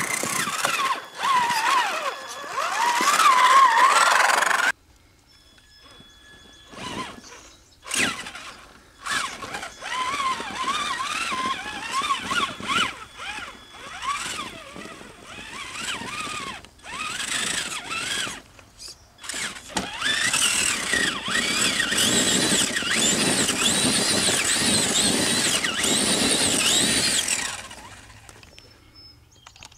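A Traxxas Summit RC truck's brushed 775 electric motor and gear drivetrain whining, the pitch rising and falling with the throttle as it crawls up a dirt and rock pile. It comes in short stop-start bursts, then a long unbroken run late on, dropping away near the end.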